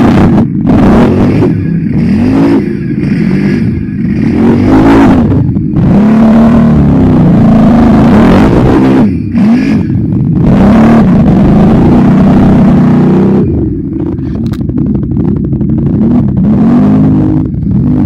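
ATV engine revving hard, its pitch rising and falling over and over as the throttle is worked. It eases off somewhat about two-thirds of the way through.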